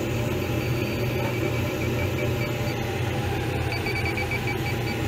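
Electronic refrigerant leak detector beeping in quick, even pulses, clearer in the last second or so, over a steady machinery hum. The alarm marks refrigerant leaking from a corroded suction line.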